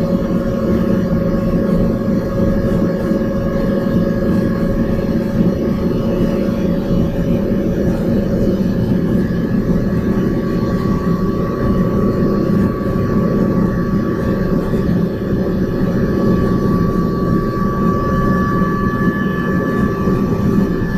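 Shinko steam turbine running at about 1,000 RPM during its warm-up, a steady loud machine hum and whir with several held tones over it.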